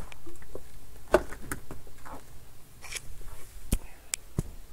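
Scattered light clicks and taps of desk handling, a few spaced over several seconds, over a low room hum.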